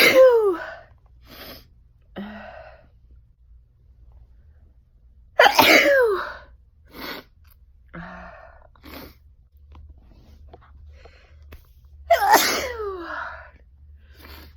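A person sneezing three times, about six seconds apart. Each is a loud sneeze whose voiced pitch falls away, with short, quieter breaths between them.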